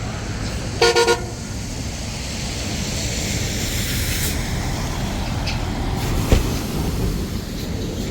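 A car horn gives three short toots in quick succession about a second in, over steady street traffic noise. A single sharp thump about six seconds in.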